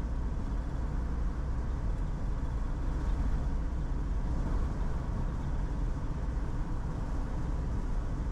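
Steady low rumble of a car's engine and tyres on the road, heard from inside the cabin while cruising at a constant speed.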